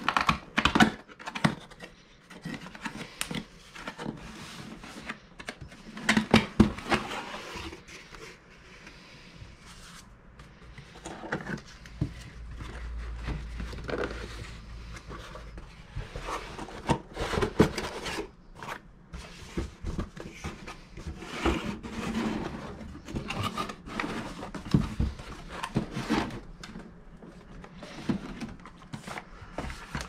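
Cardboard box being opened and unpacked by hand: irregular scrapes, rustles and bumps of cardboard flaps and packing material.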